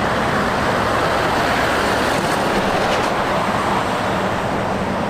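Steady, even rumbling vehicle noise with no clear engine note, heard as a toy container truck is presented.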